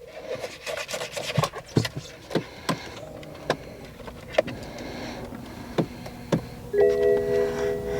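Scattered clicks and knocks of controls being worked inside a 2012 BMW 650i's cabin. About seven seconds in, a held electronic warning chime from the car's dashboard starts and keeps sounding.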